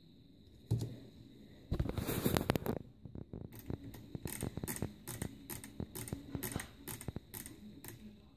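Canon EOS 450D main dial being turned, giving a steady run of small detent clicks, about four a second, as the shutter speed steps toward bulb mode. Before that, about two seconds in, comes a brief burst of rustling and scraping from the camera being handled, which is the loudest part.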